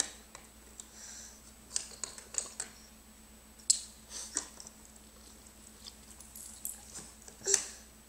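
Hard plastic alphabet stacking pieces clicking and clacking as they are picked up and set onto a tower: a scattering of sharp, separate clicks, the loudest a little past midway and near the end.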